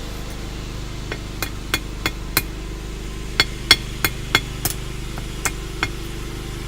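Hand hammer striking steel on an anvil at the forge: about a dozen sharp, ringing blows in three runs, five quick ones, then five more, then two. A steady low hum runs underneath.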